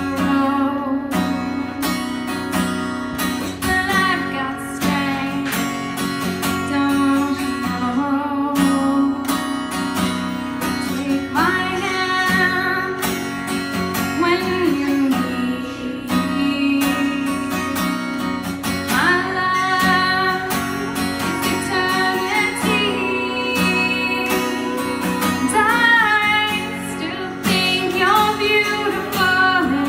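A woman singing over a strummed acoustic guitar, her sung phrases coming and going above the steady strumming.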